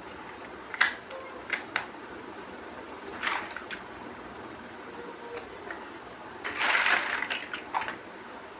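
Plastic building bricks clicking as they are handled and pressed together: single sharp clicks at uneven intervals, with a longer rattle of pieces being handled about three-quarters of the way through.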